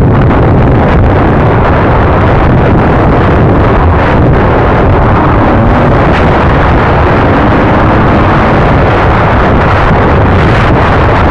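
Dirt bike riding a rough trail: the engine runs steadily under the loud, constant rush of wind buffeting the microphone.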